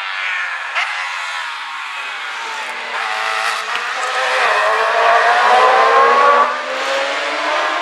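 Racing sidecar outfits going by at full speed, their 600cc four-stroke engines running at high revs. The engine pitch climbs as the outfits approach, is loudest about five to six seconds in as one passes close, and then drops away as it goes by.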